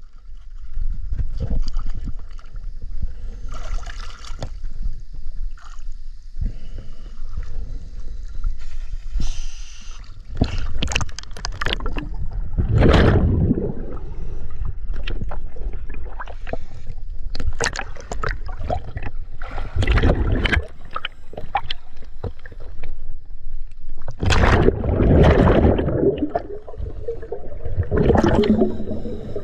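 Scuba divers breathing through regulators in the water: short hissing inhalations and irregular gurgling bursts of exhaled bubbles.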